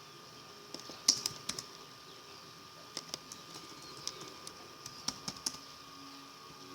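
Computer keyboard being typed on: scattered sharp key clicks, a quick cluster about a second in and another around five seconds in, over faint steady hiss.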